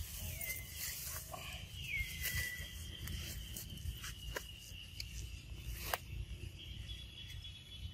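Forest ambience with a steady insect drone, two short falling squeaks in the first few seconds, and leaves and branches rustling and snapping as macaques climb and swing on a sapling, with one sharp snap about six seconds in.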